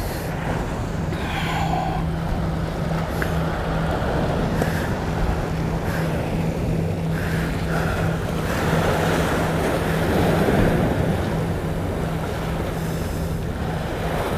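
Sea waves washing against shoreline rocks, with wind buffeting the microphone and a steady low hum underneath.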